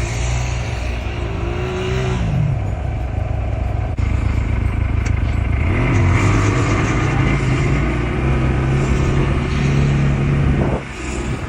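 CFMoto ATV engine running under throttle; the revs drop about two seconds in, climb again around six seconds in and hold steady, then fall off near the end.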